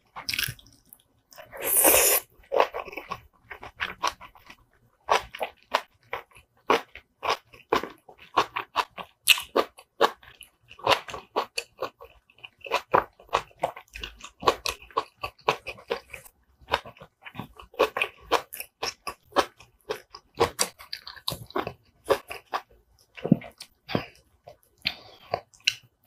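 Close-miked chewing of soft braised kimchi and rice: wet mouth smacks and clicks in a quick, irregular run, with one louder, longer mouth noise about two seconds in.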